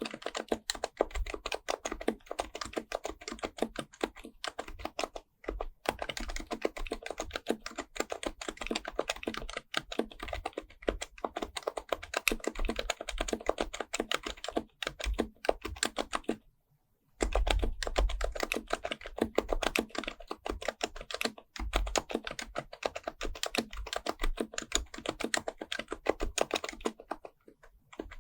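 Fast, continuous typing on a Happy Hacking Keyboard Professional Type-S with Topre capacitive switches, keystrokes coming several a second. There is one short pause about two-thirds of the way through, and the typing resumes with a few heavier strokes.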